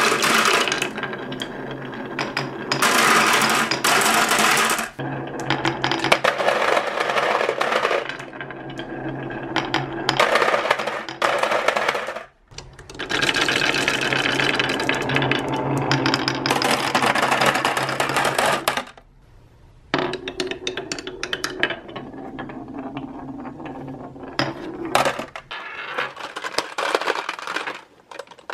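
Glass marbles rolling and clattering down a wooden HABA marble run, through a zigzag chute and a wave-shaped slope, many at once. The clatter comes in several rushes with short pauses between, and thins to scattered clicks in the last part.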